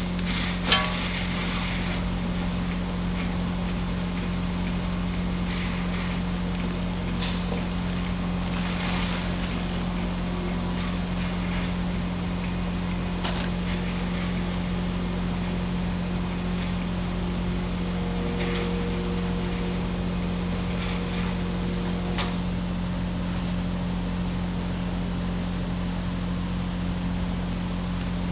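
Excavator diesel engine running steadily, with a few sharp metallic knocks and clicks at intervals.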